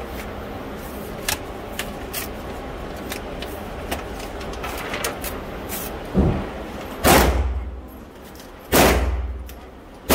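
Gunshots in an indoor shooting range: four sharp reports in the second half, the first lighter, each followed by a long echoing tail. Before them, light clicks and rustles of a paper target being handled.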